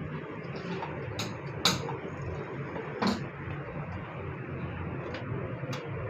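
A handful of sharp clicks and knocks over a steady background noise, the loudest about a second and a half in, typical of parts and panels being handled while working on a copier.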